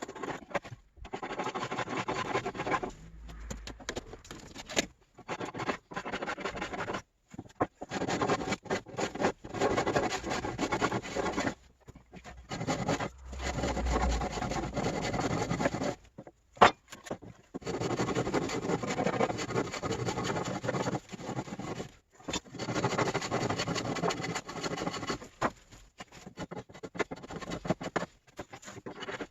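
Repeated scraping and rubbing, as from hand-tool repair work, in stretches of a few seconds broken by sudden short gaps.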